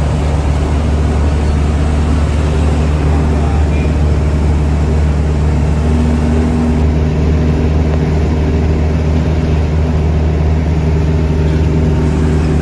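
Diesel engine of a Mitsubishi bus with the engine mounted up front under a cover in the cabin ('mesin umplung'), running steadily while the bus drives, heard from inside the cabin.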